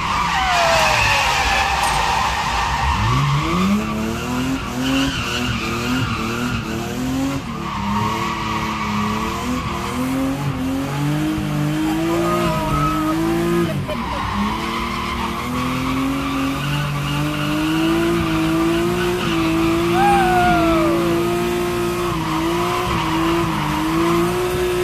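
Drift car engine revving hard, its pitch climbing and dropping again and again, then held high for the last several seconds, with tyres squealing as the car slides. Heard from inside the cabin.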